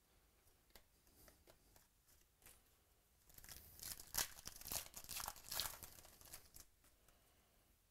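A foil trading-card pack wrapper from 2017 Contenders Football is torn open and crinkled as the cards are pulled out, a crackling tear lasting about three seconds that starts a few seconds in. Before it come a few faint ticks of cards being handled.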